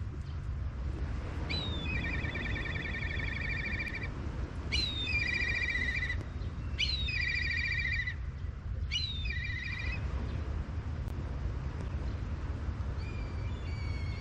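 A songbird singing: four phrases, each a quick downward sweep followed by a trill of about two seconds, with a fainter fifth phrase near the end. A steady low rumble runs underneath.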